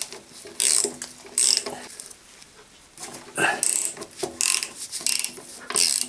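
Ratcheting ring spanner clicking in short bursts as it is swung back and forth to undo the nuts holding a steering rack to the chassis. It makes about one burst a second, with a pause of a second or so near the middle.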